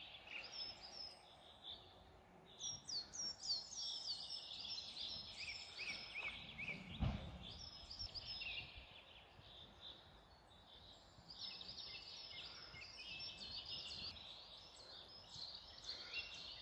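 Small birds singing, faint runs of short, quickly falling whistled notes repeated over and over, with a single low thud about seven seconds in.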